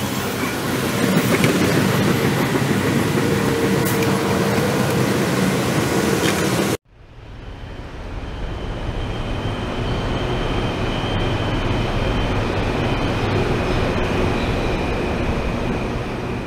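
Steady station noise for about the first seven seconds, then a sudden cut. After it, a Rapid KL light-rail train runs in the station: a steady low rumble with a faint high whine.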